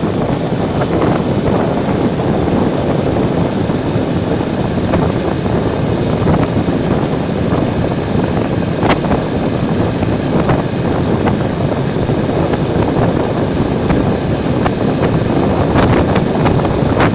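Motorcycle riding at highway speed: a loud, steady rush of wind over the microphone mixed with engine and road noise, with a few brief knocks from wind buffeting.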